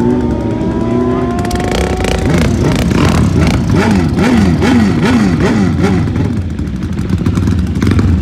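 Racing motorcycle engines at a drag strip. One engine climbs steadily in pitch for the first couple of seconds as it accelerates. Then an engine is blipped up and down about twice a second, with sharp crackles, revving at the line before a launch.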